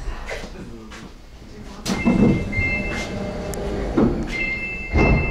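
Subway train's sliding passenger doors working at a station stop. Three thuds come as the doors move, and a two-tone electronic door chime sounds twice, from about two seconds in and again near the end.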